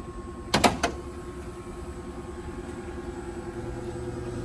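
Pickup truck hood latch released and the hood lifted: a few sharp clunks about half a second in. Then a steady hum with a held tone from the F-150's electric-conversion drive system under the open hood, growing a little louder near the end.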